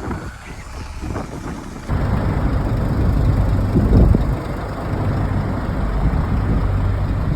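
Truck diesel engine running steadily with a low, even rumble. It gets suddenly louder about two seconds in.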